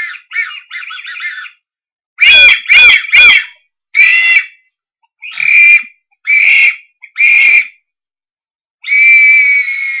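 A person making bird-like calls with the mouth, hand held at the lips. First a quick run of faint chirps, then three loud high-pitched calls in quick succession with sliding pitch, four more single calls about a second apart, and a long held call near the end.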